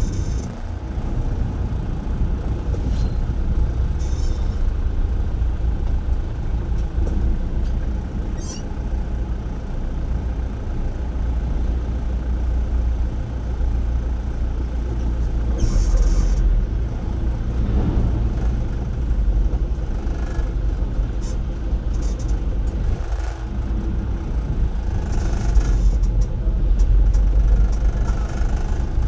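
Slow, heavy road traffic of container trucks and cars heard from inside a car: a steady low rumble of engines and tyres, with a couple of brief high hisses, one about halfway through and one near the end.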